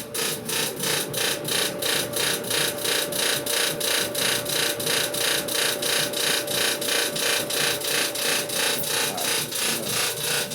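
Samsung clothes dryer running with a rhythmic grinding and rasping, about four pulses a second, over a steady hum. The grinding is not cured by a new motor, drum rollers, idler pulley and drum belt, so its cause lies elsewhere.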